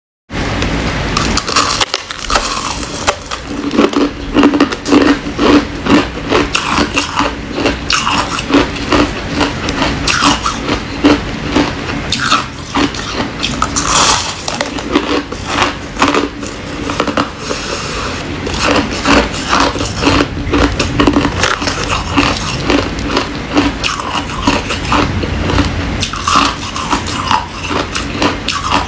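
Close-miked biting and chewing of coarsely crushed ice: dense, irregular crunching and crackling of ice breaking between the teeth, going on without pause.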